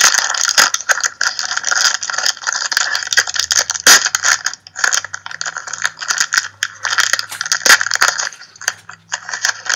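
Trading cards and their foil pack wrappers being handled: dense crinkling with many small sharp clicks and snaps, on and off.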